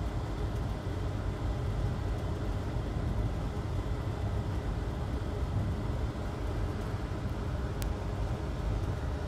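Steady low rumble of background noise with a faint hum, and a single faint tick near the end.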